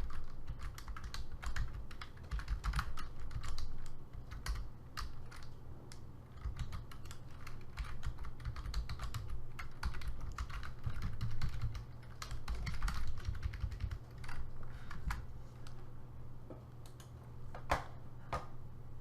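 Typing on a computer keyboard: a run of irregular key clicks that thins out in the last few seconds, over a steady low hum.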